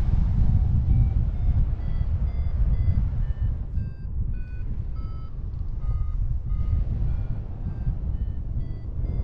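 Wind buffeting the microphone as a continuous low rumble. Over it, many short faint beep-like tones sound at scattered pitches, a few each second.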